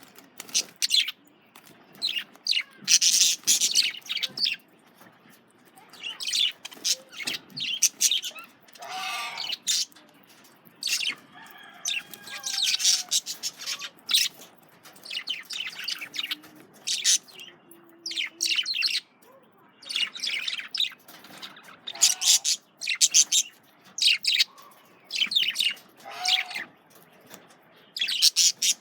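Male budgerigars chirping and chattering, with runs of short high calls in quick succession and a few longer gliding warble notes between them.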